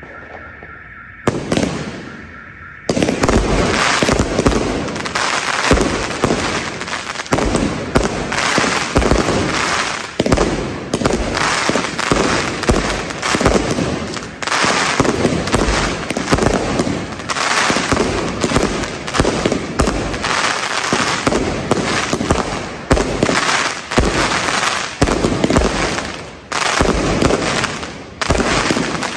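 Dense New Year's Eve barrage of fireworks and firecrackers, many bangs and crackles overlapping. It is quieter at first and turns into a near-continuous barrage about three seconds in.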